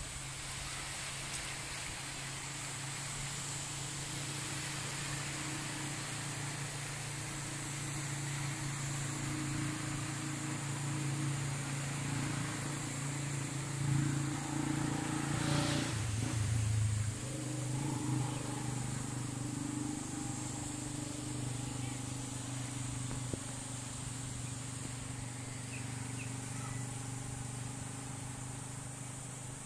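An engine drones steadily at a low pitch and swells louder for a few seconds about halfway through.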